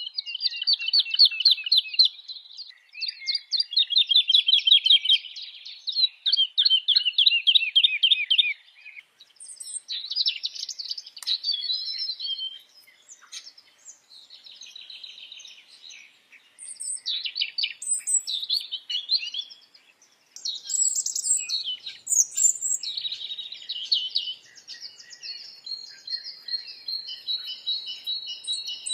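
Songbirds singing: three rapid trills about two seconds each, falling in pitch, then a run of varied high chirps and warbling phrases.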